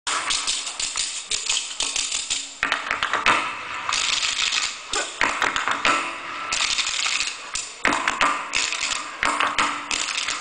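A troupe playing metal spoons as percussion in unison: fast, rhythmic clacking, with short breaks between phrases.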